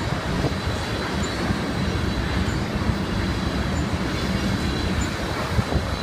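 Freight train cars rolling past on the main line: a steady rumble and rattle of steel wheels on rail, with a faint high wheel squeal over it.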